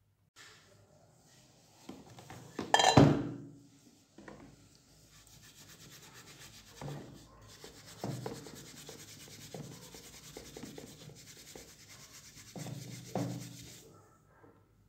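Steel wool scrubbing the wet, corroded surface of a copper-alloy candlestick piece: a steady scratchy rubbing broken by small knocks. A louder clatter comes about three seconds in.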